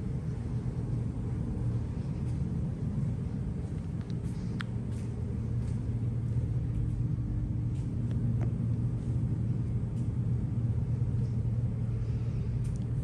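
Steady low rumble with a hum, with a few faint clicks over it.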